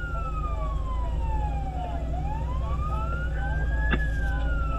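Fire engine siren on a slow wail, its pitch rising and falling in a cycle of about four seconds, over the steady rumble of the truck's engine and tyres heard from on board. A single sharp click sounds about four seconds in.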